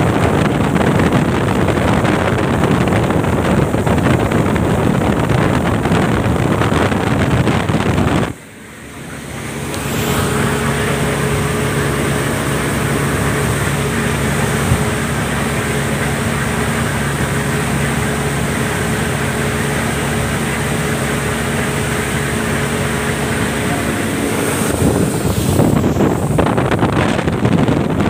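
Speedboat engine running at speed, with wind buffeting the microphone and water rushing past the hull. About eight seconds in the sound cuts out and fades back over a couple of seconds; after that the engine's steady hum stands out more clearly, until the wind noise swells again near the end.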